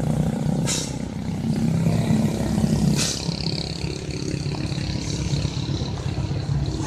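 Diesel engine of a red Nissan Diesel lorry running steadily under load as it climbs a hill, with two brief hisses about a second and three seconds in.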